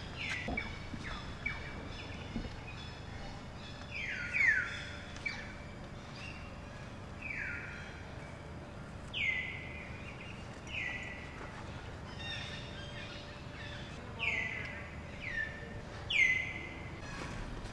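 Birds calling: about a dozen short calls, each falling in pitch, spaced irregularly over a steady low background noise.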